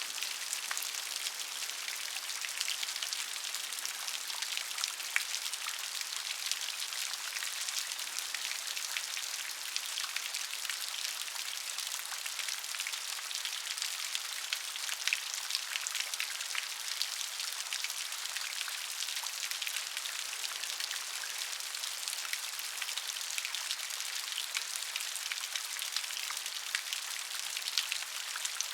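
Rain falling steadily, a dense patter of individual raindrops ticking on a surface over a constant hiss.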